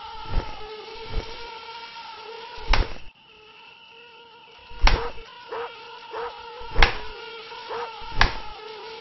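Mosquito whining steadily, with a string of sharp slaps from a rolled-up newspaper swatting at it against a wall. The whine drops out for a moment about three seconds in, then comes back.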